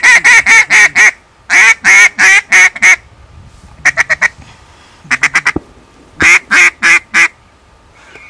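Mouth-blown duck call sounding loud hen-style quacks in runs: two runs of about six evenly spaced quacks, then two quick short bursts of chatter, then four more quacks near the end. It is calling to lure ducks flying over at dusk.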